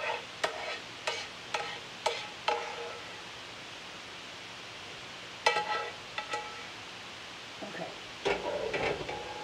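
A spoon knocking and scraping against a frying pan as the chicken pot pie filling is scraped out into a baking dish. Sharp knocks, each ringing briefly, come about twice a second at first. A few more follow about halfway through, then denser scraping and clatter near the end.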